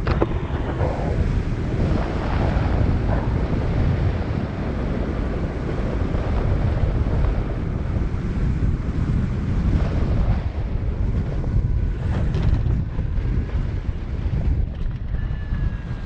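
Strong wind buffeting the microphone of a hang glider's onboard camera during a low final glide: a steady, low rushing roar of airflow in a 25–30 mph wind.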